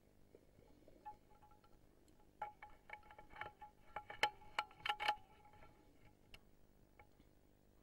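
Faint metallic chimes tinkling: a few single light tings, then a flurry of ringing strikes starting about two and a half seconds in and lasting nearly three seconds before dying away.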